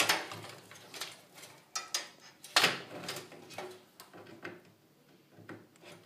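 Plastic power-supply connectors and cable bundles clicking and knocking against a steel computer case as the power cable is plugged into the motherboard. There is a sharp knock right at the start and the loudest one about two and a half seconds in, with lighter taps and rustles between.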